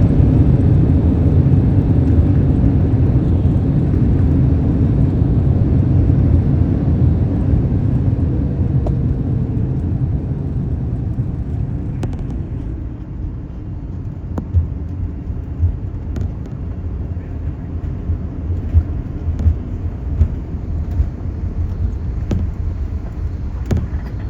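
Boeing 787 cabin noise just after landing: a loud low rumble of the engines and wheels that slowly fades as the jet slows on the runway, with a faint falling tone near the middle. From about halfway on a quieter rumble carries scattered knocks and rattles.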